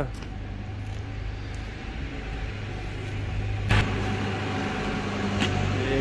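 A steady low mechanical hum of a running engine or machine, with a sharp knock a little under four seconds in and a fainter one near the end.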